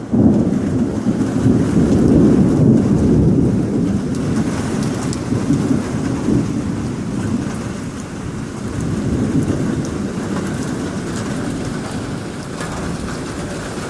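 Heavy rain and hail pouring down in a storm, a dense rushing noise with a deep low rumble, loudest in the first few seconds and then easing slightly.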